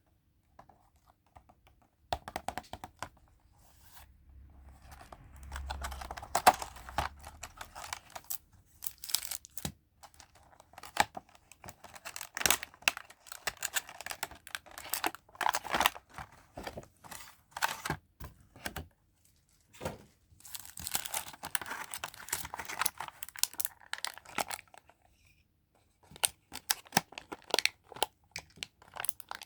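Packaging being unwrapped by hand close to the microphone: tearing and crinkling of wrapping, with many sharp taps and clicks in between.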